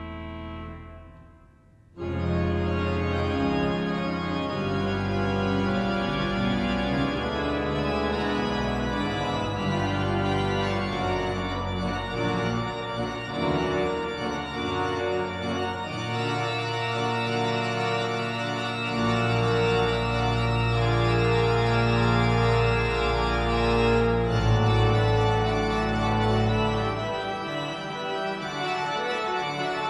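Rushworth and Dreaper pipe organ playing a toccata. A chord dies away, then about two seconds in the organ comes back in loud, with sustained chords over deep pedal notes.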